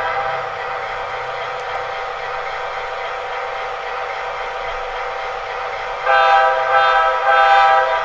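Sound decoder of an MTH HO-scale diesel locomotive playing its engine sound steadily through a small speaker. About six seconds in, the horn gives three short blasts, the signal for backing up.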